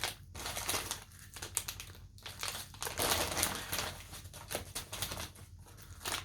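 Small plastic bags of diamond painting drills crinkling and rustling as they are picked up and handled, in irregular bursts.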